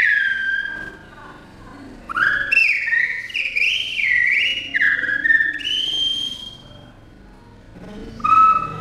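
Whistling that stands in for a man's speech: high, gliding whistle phrases that rise and fall like spoken sentences. Short pauses fall between the phrases, about 1 s in and again about 6.5 s in.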